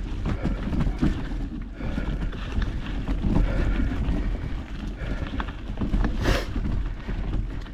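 Mountain bike riding over a rough trail, tyres and frame rattling irregularly over roots and rocks, with wind on the microphone and the rider breathing hard. A brief burst of noise about six seconds in.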